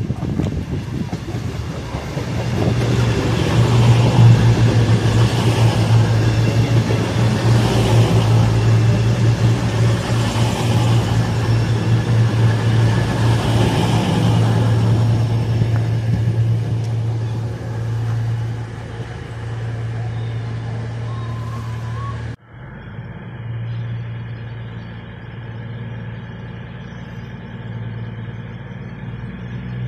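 CrossCountry Voyager diesel multiple unit arriving, its underfloor diesel engines running with a steady low hum that is loudest as the train runs alongside. After a sudden cut about 22 seconds in, the train stands at the platform with its engines idling more quietly.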